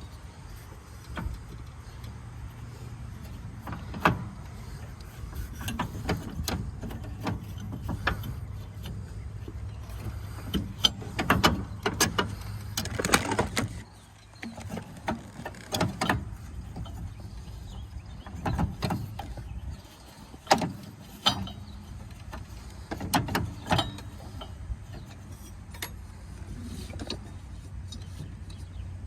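Irregular clinks, clicks and knocks of hand work on a riding mower's deck, as parts and tools are handled while the deck belt is replaced, over a steady low hum.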